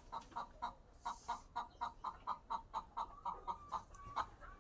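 Chickens clucking: a rapid series of short, faint clucks, about four a second.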